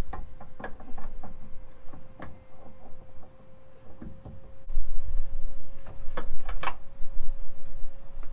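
Handling noise as the camera is picked up and moved: scattered clicks and knocks with low rumble, louder from about halfway through, over a faint steady tone.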